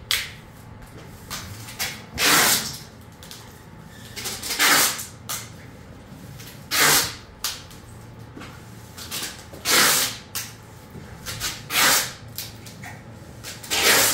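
A person breathing hard close to the phone's microphone: six loud hissing breaths about every two seconds, with fainter ones in between.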